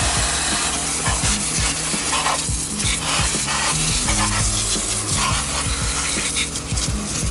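Water spraying in a continuous hissing, spattering stream onto an engine bay as it is rinsed.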